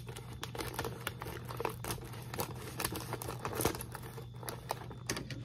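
Scissors cutting open the top of a plastic pork rind bag, with the bag crinkling and crackling in irregular little bursts as it is handled.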